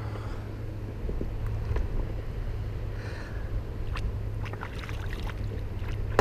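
Choppy water lapping and slapping against a small boat, over a steady low rumble, with scattered small knocks and ticks.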